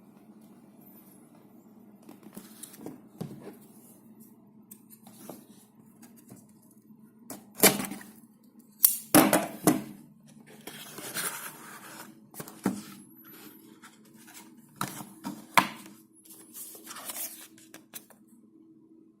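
Hands unboxing a phone: scattered clicks, knocks and scraping of the cardboard box and its contents, with tearing of packaging. The sharpest knocks come about halfway through, and there is a faint steady low hum underneath.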